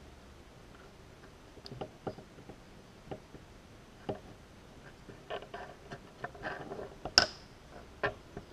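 Scattered light clicks and taps of small plastic quadcopter parts being handled and pressed together by hand, more frequent in the second half, with one sharp click about seven seconds in, the loudest sound.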